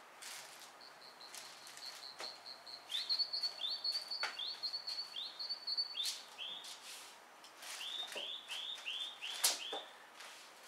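A songbird singing: a quick run of repeated high chirps, then phrases of short hooked whistled notes, a few per phrase. Light knocks from pine boards being shifted by hand on the floor, with one sharp click near the end the loudest.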